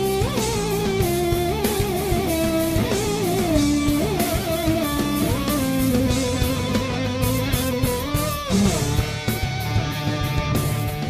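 Live rock band playing an instrumental: an electric guitar carries the lead melody with slides, bends and vibrato over bass and drums. It ends on a long held note that bends quickly down near the end.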